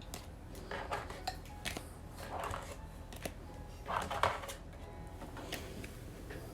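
Trading cards being gathered up and handled on a table: several short swishes of card stock sliding, with light clicks and taps in between, the loudest swish about four seconds in.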